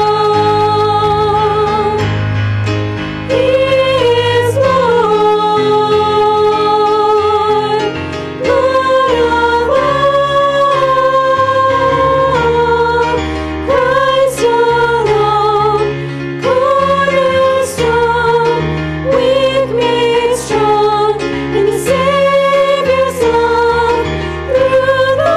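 Several women's voices singing a slow worship song together, holding long notes with vibrato, over sustained chords on a Yamaha stage keyboard.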